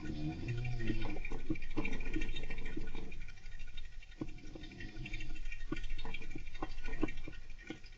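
Golden hamster scratching and pattering about, with quick light clicks and scrabbles all through, under gentle snoring that swells twice, once at the start and again midway.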